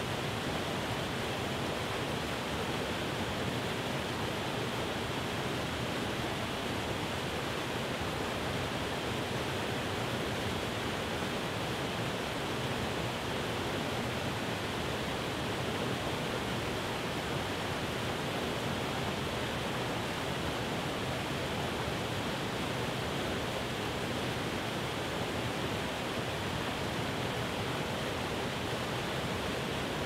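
Small waterfall splashing over rock ledges into a pool, a steady rushing of water that never changes.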